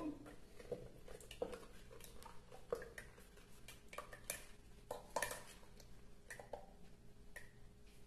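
Small cardboard carton of condensed milk being squeezed and folded by hand over a plastic blender jar: irregular small clicks and crackles of the creasing carton, a few of them sharper.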